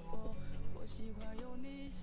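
Background music with plucked notes and held tones.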